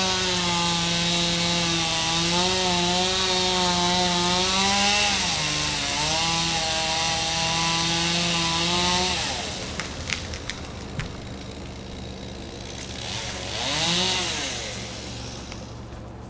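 Chainsaw running steadily while cutting, its pitch wavering and dipping under load, then stopping about nine seconds in. A few sharp knocks follow, and near the end a brief engine sound rises and falls in pitch.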